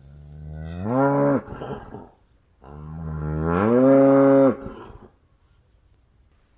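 Cow mooing twice. Each call starts low, rises in pitch and holds. The first ends about a second and a half in; the second, longer and slightly louder, starts near three seconds and stops at about five.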